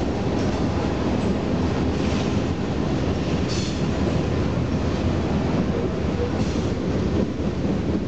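Freight train cars rolling past: a steady rumble of steel wheels on the rails, with a few brief high-pitched wheel squeals.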